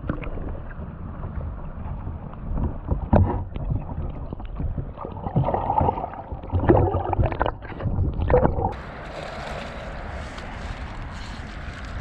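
Water sloshing and gurgling heard muffled through an underwater camera held in the river, with a few sharp knocks on it. About nine seconds in the sound opens up to open air, with wind hiss on the microphone and lapping water.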